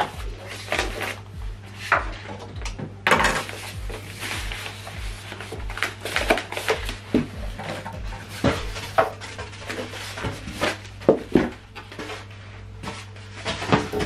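Polystyrene foam packing caps being pulled off a plastic-wrapped subwoofer: irregular squeaks, scrapes and knocks of foam, with rustling of the plastic wrap.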